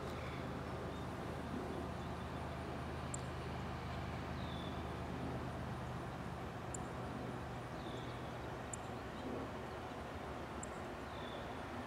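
Quiet rural ambience: a faint low hum that fades over the first half, with a short falling bird chirp repeating every three to four seconds and a few sharp high ticks.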